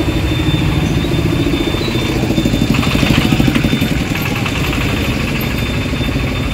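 A motor vehicle engine running steadily, a continuous low rumble.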